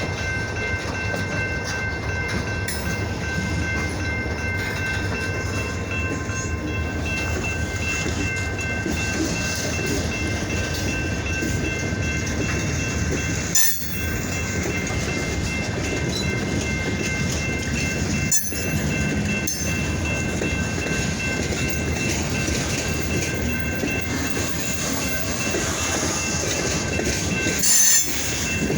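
Freight train on the rails: a steady rumble of rolling stock with a faint, steady high whine, broken by sharp knocks about 14 and 18 seconds in and again near the end.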